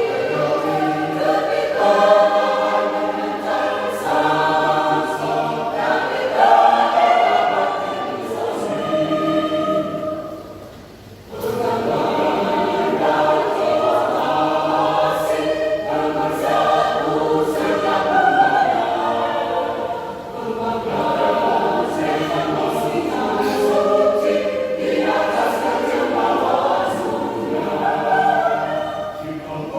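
Church choir singing in several parts, dropping away briefly about ten seconds in before the voices come back in together.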